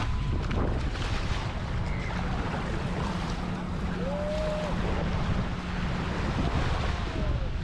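Ocean surf washing onto a sandy beach, with wind buffeting the microphone in a steady low rumble.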